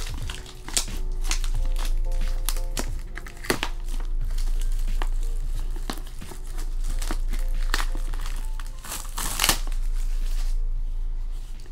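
Plastic shrink wrap crinkling and tearing as it is pulled off a boxed CD album, the crackling dying away near the end, over background music with held notes.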